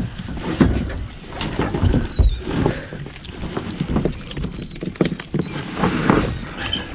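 Green mesh trawl tail bag full of live shrimp being handled, giving irregular wet rustling and knocks, with a few faint high chirps.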